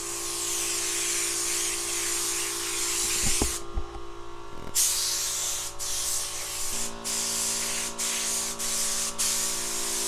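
Compressed-air gravity-feed spray gun hissing as it sprays the first silver base coat onto a car body. The hiss stops for about a second some three and a half seconds in, then comes back in passes cut by short breaks as the trigger is released between strokes.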